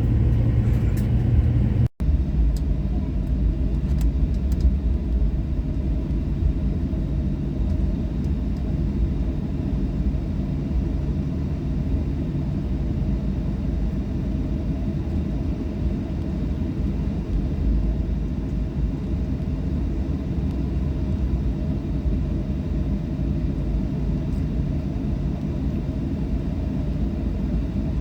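Steady low rumble of a Boeing 737-800's CFM56 engines and airflow, heard from inside the cabin, with a faint steady hum over it. The sound cuts out for an instant about two seconds in.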